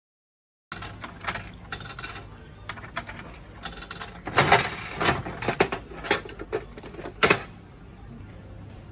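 A series of irregular clicks and knocks over a low steady hum, starting about a second in, clustering loudest around the middle and with one sharp knock near the end.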